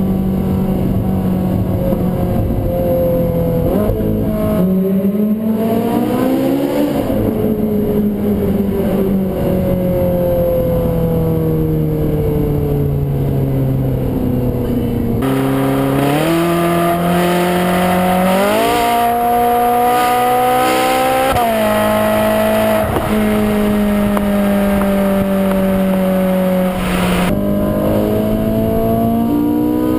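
Ferrari 458 Spider's 4.5-litre V8 and exhaust, revving up several times and then letting the revs fall away slowly as the car slows. In the middle it climbs in quick steps, then it eases off and picks up again near the end.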